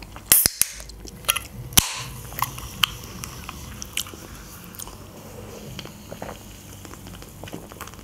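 A few sharp clicks and taps from an aluminium Coca-Cola can being handled and cracked open, with quiet chewing sounds between them.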